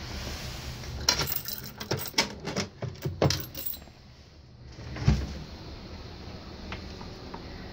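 A bunch of keys jangling and clinking in a lock on a slot-machine cabinet as the bottom cover is opened, then a single thump about five seconds in.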